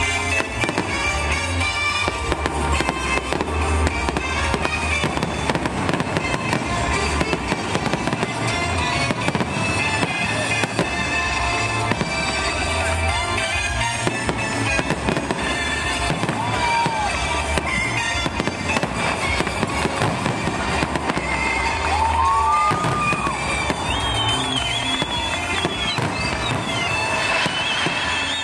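Fireworks display: a continuous barrage of aerial shells bursting, with rapid bangs and crackling, over music playing.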